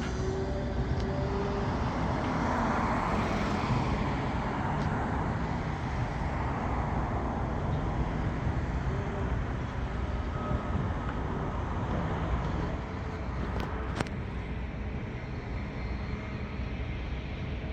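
Steady outdoor road-traffic noise, swelling briefly about three seconds in, with a single sharp click near the end.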